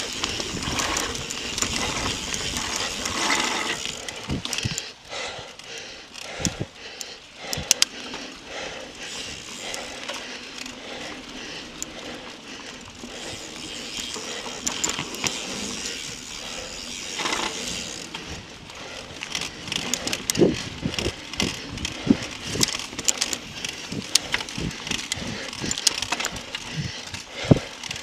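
Mountain bike ridden fast over dirt singletrack strewn with dry leaves: tyres rolling and crunching, with the bike rattling and clacking over bumps in many short sharp knocks that come more often in the last third.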